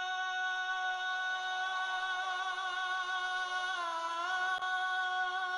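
Male singer holding one long sustained note, its pitch dipping briefly and recovering about two-thirds of the way through.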